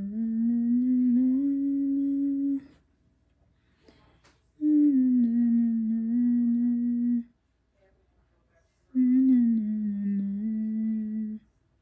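A woman humming three long held notes, each about two and a half seconds with a short pause between. The pitch steps up slightly in the first and drifts down in the second and third.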